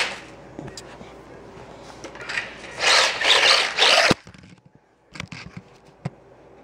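A micro RC car's tyres scrubbing and skidding on a smooth hard floor as it drifts up close: a rasping noise about three seconds in that lasts just over a second and cuts off abruptly, followed by a few faint ticks.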